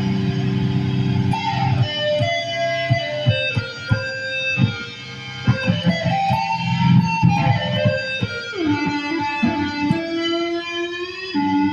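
Electric guitar playing single held notes and quick picked or tapped notes, with one note sliding down in pitch about eight seconds in.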